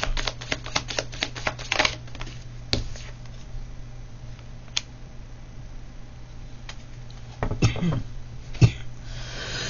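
Tarot cards being shuffled by hand: a quick run of card flicks and snaps in the first two seconds, then a few scattered single clicks. A brief vocal sound comes about seven and a half seconds in.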